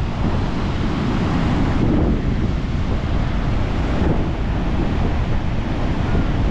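Wind buffeting the microphone over the steady wash of breaking surf, with the rumble of the wind strongest in the bass.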